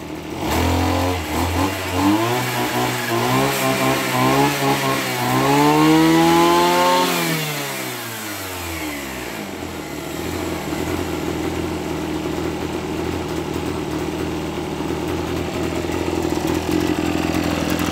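Tanaka TBC340S 34cc two-stroke brush cutter engine revved up and down several times with the throttle, reaching its highest revs past the middle. It then drops back to a steady idle for the second half.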